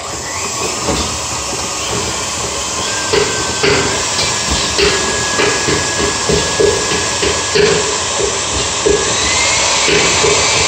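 Liquid nitrogen hissing loudly and steadily as nitrogen ice cream is made, starting suddenly, with irregular knocks and clatter about once or twice a second.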